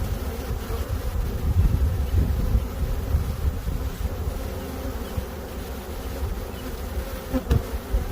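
Honeybees buzzing en masse at the hive, a dense continuous hum with a low rumble under it.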